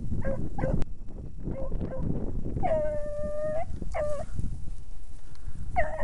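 Beagle hound baying while trailing a rabbit: a few short yelps in the first second, one long drawn-out howl of about a second near the middle, then two more short barks, over a steady low rumble.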